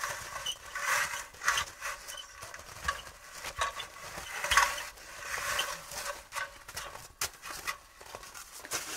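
Footsteps crunching in packed snow with the knocks and rattles of an aluminium extension ladder being carried and stood upright; a few sharp clicks come near the end.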